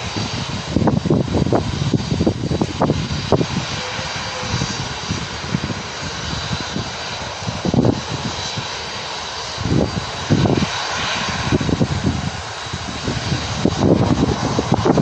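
Jet engines of a Boeing 737-400 freighter running as it moves along the runway: a steady jet roar with a faint high whine, broken by irregular low rumbling gusts.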